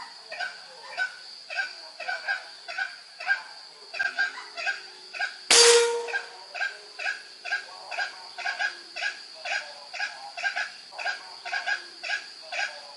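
A single sharp shot from a Marauder Titanium OD 28 air rifle, about five and a half seconds in, taken at a wild junglefowl rooster that it hits. Underneath runs a steady, rhythmic chorus of animal or insect calls, about three a second, over a constant high drone.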